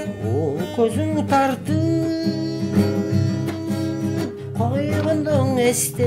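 Background music: strummed acoustic guitar with a singing voice carrying a melody over it.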